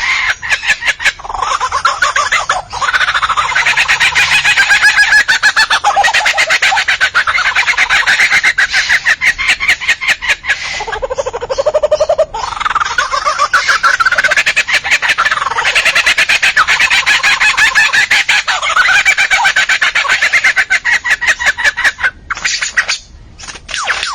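A bird singing continuously in a long run of rapid repeated notes that keep shifting in pitch, with a lower sliding call about 11 seconds in and a short pause near the end.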